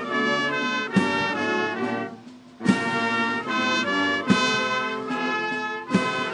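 Military brass band playing a national anthem: sustained brass chords with a bass drum stroke about every one and a half seconds, pausing briefly between phrases about two seconds in.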